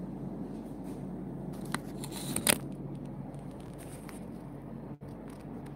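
Handling noise from a smartphone being picked up and moved: a few light clicks and one louder knock about two and a half seconds in, over a steady low room hum.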